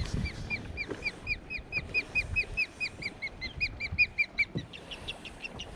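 A bird calling: a fast, even run of about twenty short, clear, repeated notes, about five a second, trailing off into a few fainter, slower notes near the end. Light knocks of water and boat sit underneath.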